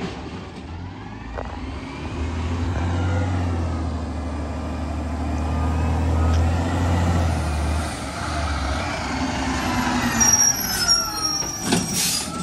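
Diesel engine of an automated side-loader garbage truck running and revving as it drives up, its pitch rising and falling. About ten seconds in it stops, with a high brake squeal and sharp hisses of air.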